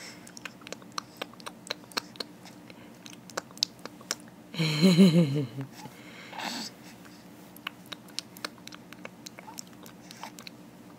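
A baby's small wet mouth clicks and lip-and-tongue smacks, scattered throughout, typical of a hungry infant working her tongue. About halfway through comes a drawn-out, wavering voiced 'ooh' lasting about a second.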